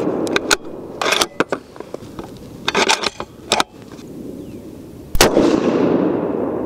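Remington 700 bolt-action 30-06 rifle: the echo of a shot fades, the bolt is worked in a few quick metallic clicks and clacks, then another shot fires about five seconds in, its report echoing and dying away.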